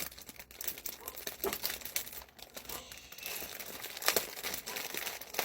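A shopping bag crinkling and rustling as it is opened and handled, in irregular sharp crackles.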